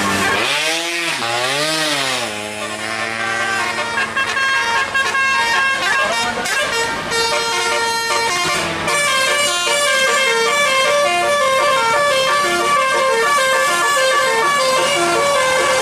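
Bus 'Basuri' telolet musical air horn with roof-mounted trumpets. It opens with two rising-and-falling swoops in pitch, then plays a fast tune of short stepped notes.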